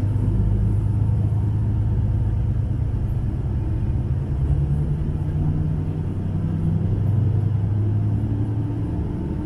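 Diesel railcar's engine and running gear heard from inside the passenger cabin as the train pulls away from the station: a steady low rumble and hum, the engine note rising a little partway through as it accelerates.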